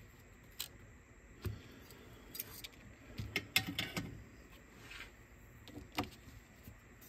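Irregular small clicks and taps of small parts and tools being handled, with a quick run of clicks about three and a half to four seconds in.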